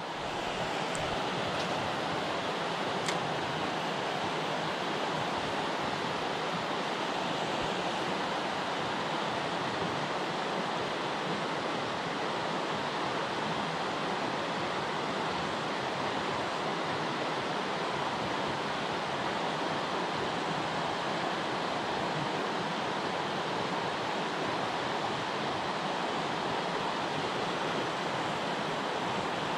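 Rushing water, a steady, unbroken rush without the rise and fall of breaking waves.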